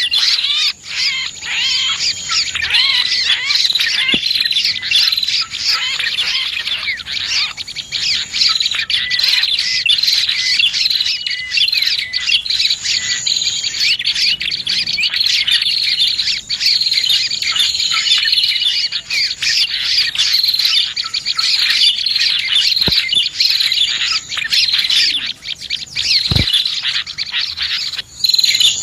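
Dense, continuous chorus of small songbird calls: rapid overlapping chirps, twitters and trills, from a bird-lure recording of prinias (prenjak) and other small birds. A couple of brief low thumps sound near the end.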